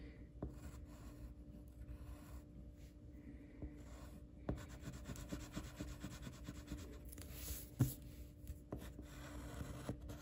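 Faint scratching and rubbing of drawing strokes on paper, with a few light taps.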